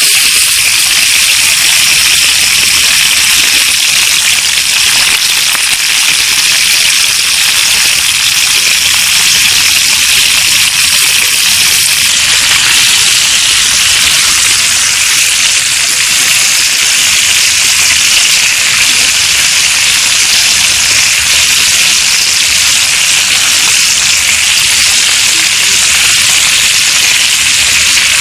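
Steady, loud hiss that runs without a break.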